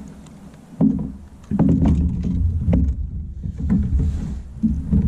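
Knocks and thumps on a kayak over a low rumble on the microphone, as a landed flathead catfish is handled aboard.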